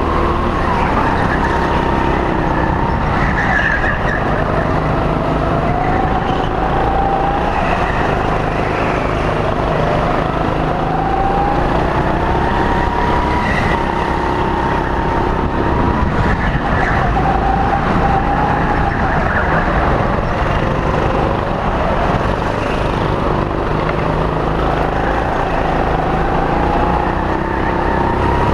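Go-kart motor heard from on board while lapping a track, its pitch climbing and falling again and again as the kart speeds up and slows for the corners, over a steady rumble.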